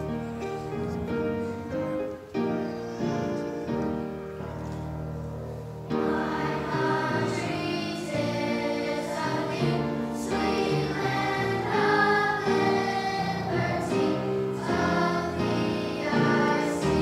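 Children's choir singing with instrumental accompaniment. The accompaniment plays alone at first, and the children's voices come in about six seconds in.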